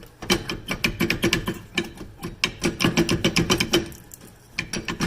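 Rear brake caliper being wiggled and worked off the bracket by hand: a rapid, irregular run of metal clicks and clattering that stops about four seconds in, with a few more clicks near the end.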